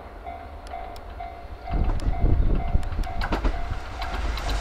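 Level crossing warning bell ringing, a short repeated ding about three times a second, while a JR Kyushu 305 series electric train approaches. The train's rumble and wheel clicks grow louder from about two seconds in.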